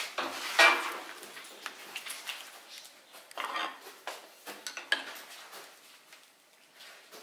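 Clanks and knocks of metal kitchenware and tools while a lump of hot sugar candy is worked on a bench-mounted pulling peg. The loudest is a ringing clank about half a second in, followed by scattered lighter knocks, including a sharp one about five seconds in.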